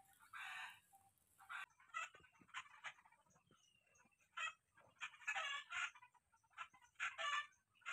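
Chickens clucking in short, irregular calls, with a thin falling whistle near the middle.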